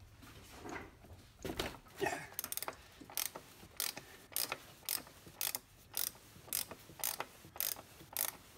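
3/8-inch ratchet clicking in a steady run of short strokes, about two clicks a second from a couple of seconds in, as it turns a cap wrench to loosen the oil filter housing cap.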